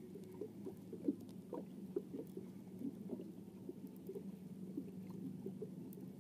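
Spinning reel being cranked to wind in the line, with faint, irregular small clicks and ticks over a low steady hum.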